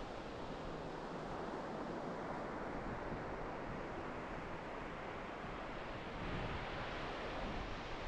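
Ocean surf breaking and washing up a sandy beach: a steady hiss of rushing water that swells as waves come in, a little louder about six seconds in.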